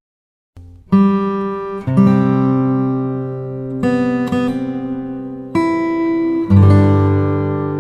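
Music: strummed acoustic guitar chords, a fresh chord struck every one to two seconds, coming in after a short silence.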